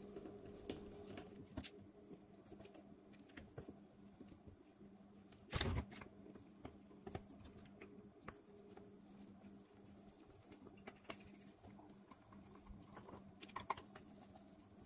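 Faint scattered clicks and taps of a screwdriver working screws out of a spinning-reel body, with one louder knock about five and a half seconds in and a few more clicks near the end, over a faint steady hum.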